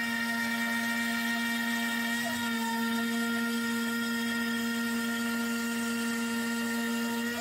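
NymoLabs trim router serving as the NymoLabs NBX-5040 CNC router's spindle, set on dial 3, running with a quarter-inch upcut bit and cutting a shallow pass through MDF. It makes a steady high whine, with a small change in tone about two seconds in.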